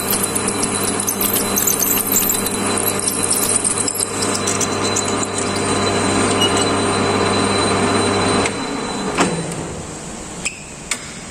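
Metal lathe running with a 13.8 mm twist drill cutting into ST60 steel, a steady hum with a fine crackle of cutting. About eight and a half seconds in the machine is switched off and the hum dies away, followed by a few light clicks.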